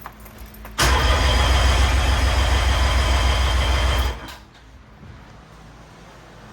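Yamaha 90 hp two-stroke outboard turned over by its electric starter with the spark plugs out, cranking fast and evenly for about three seconds before stopping: a compression-test crank on one cylinder of the freshly rebuilt power head.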